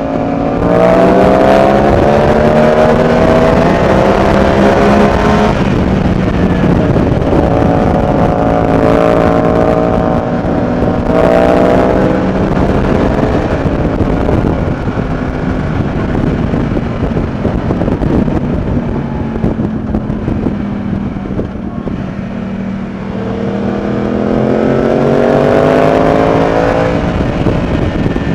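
Loud motorcycle exhaust from a Yamaha MT-07's parallel-twin engine, heard over wind noise. The engine note climbs as it accelerates at the start, drops at a couple of gear changes, eases off in the middle and climbs again near the end.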